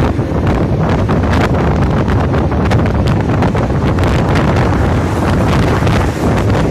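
Loud, steady wind buffeting the microphone: a constant low rumble with frequent crackles.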